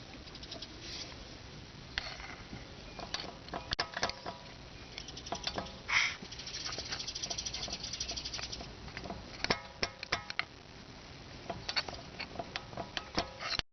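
Irregular metallic knocks and rattles, each with a brief ring, from the front brake pads shifting in a VAG FS-III caliper: the brake knock that comes from loose pads. About halfway through comes a fast run of clicks lasting a couple of seconds.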